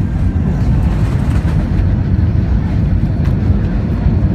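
Jet airliner cabin noise heard from inside the cabin: a steady, loud low rumble of engines and airflow around the landing.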